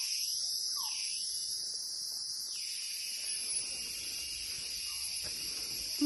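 Rainforest insect chorus: a steady, high-pitched drone.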